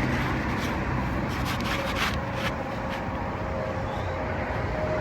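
An asphalt shingle scraping against the gritty roof shingles as it is handled and adjusted, in a few short rubbing strokes about one and a half to two and a half seconds in, over a steady outdoor rumble.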